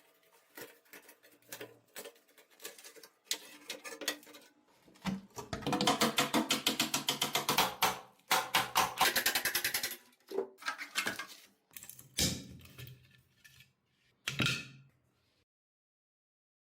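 Hand tools at work dismantling a rusted steel scooter body: bursts of rapid clicking with scattered knocks, the longest run lasting a few seconds in the middle.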